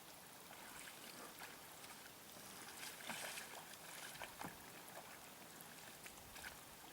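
Faint water lapping and trickling around a small rowboat, with a few light splashes about three to four and a half seconds in.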